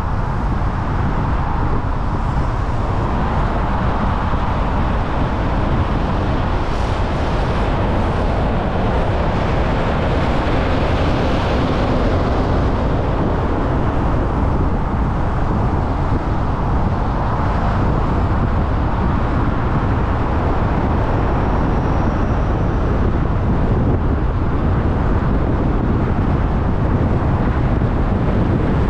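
Steady road noise of a car driving on city roads and highway: a low tyre-and-engine rumble with hiss, which brightens for a few seconds near the middle.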